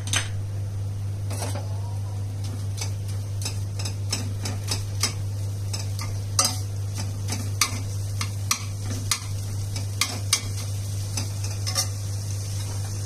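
Perforated stainless-steel spatula scraping, tapping and stirring crumbled paneer in a nonstick kadhai, in irregular clicks and scrapes, over a steady low hum.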